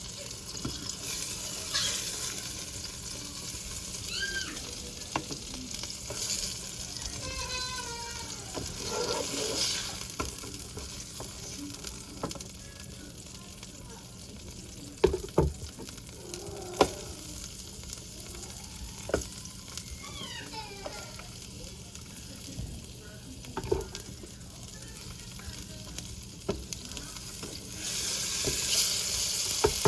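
Slices of yellow summer squash sizzling in olive oil in a skillet, a steady frying hiss, with a few sharp clicks from a utensil against the pan.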